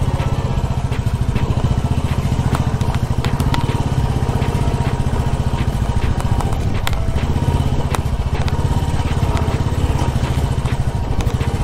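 Royal Enfield Classic's single-cylinder engine running at low speed on a rocky dirt track, with a steady, even exhaust pulse. Scattered sharp clicks and knocks from the bike jolting over stones.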